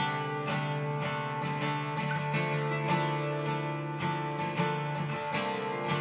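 Background music: acoustic guitar strumming and picking with a steady rhythm.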